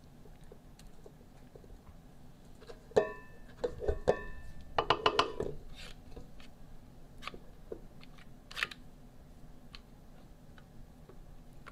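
A kitchen scraper knocking and scraping against a stainless steel mixing bowl as ricotta mixture is scooped out and spread, with soft scraping between the knocks. The sharp clinks come about three seconds in and as a quick cluster around four to five seconds, some with a brief metallic ring, and there is one more knock near nine seconds.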